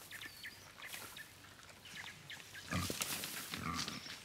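Wild boar grunting: two short, low grunts about three seconds in, over small birds chirping.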